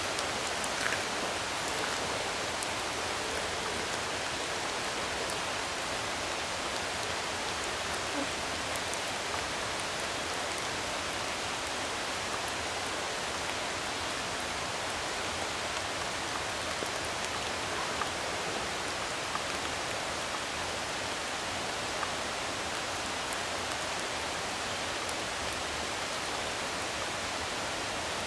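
Water drops falling from the wet forest canopy into a puddle, with a few faint ticks over a steady even hiss of water.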